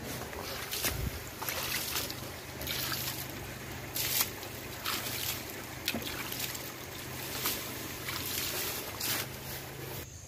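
Water being splashed over a heavily loaded truck's overheated brakes, in irregular bursts of splashing and hiss about every second or so, with a steady low engine hum underneath.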